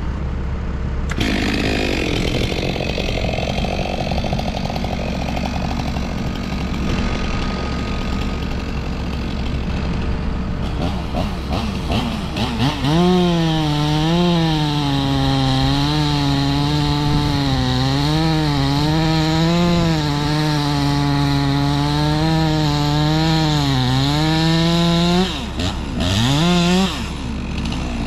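Stihl MS 462 C two-stroke chainsaw cutting into a white oak. It runs at high revs with its pitch dipping and recovering again and again as the chain bites, then is let off abruptly near the end with a brief rev.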